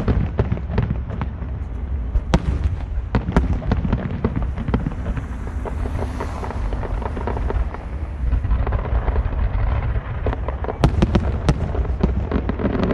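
Fireworks display: aerial shells bursting in rapid succession, many sharp bangs and crackles over a steady low rumble, with the loudest bangs right at the start and about eleven seconds in.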